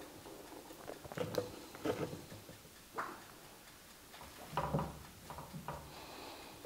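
A few soft clicks and knocks of a spoon scraping filling from a mixing beaker and of stuffed mushroom caps being set down in a ceramic baking dish, the loudest knock about four and a half seconds in.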